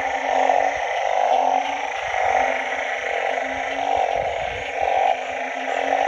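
Frogs calling in a dense, steady chorus, with a low, drawn-out call from a nearby frog repeating in stretches of about a second with short breaks between.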